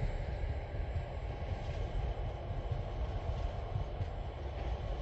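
Low, steady rumble of a diesel-hauled TasRail freight train running on along the line.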